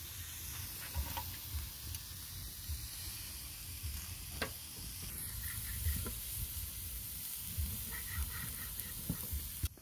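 Beef steak, fat and vegetables sizzling on a hot grill pan: a steady hiss with a few faint light knocks, cutting off abruptly near the end.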